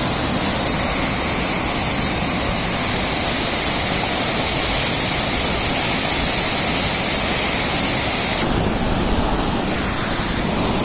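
A waterfall's water pouring steadily down the rocks, a loud, even rush with no let-up; the hiss in the upper part of the sound drops slightly about eight and a half seconds in.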